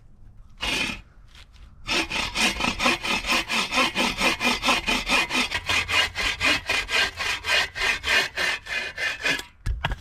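A hand saw cutting through a piece of firewood. A single stroke comes first, then a steady back-and-forth run of about four strokes a second, ending in a short low thud.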